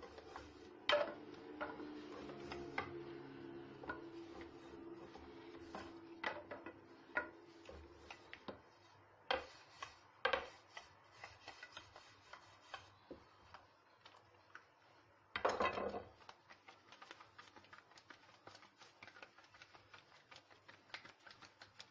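Long thin wooden rolling pin rolling out lavash dough on a floured tray, with irregular knocks and clicks as the pin bumps the tray and counter. A short, louder clatter comes about fifteen seconds in.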